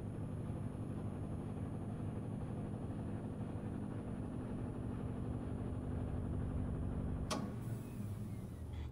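A steady low mechanical hum, like a motor running, with a sharp click a little over seven seconds in.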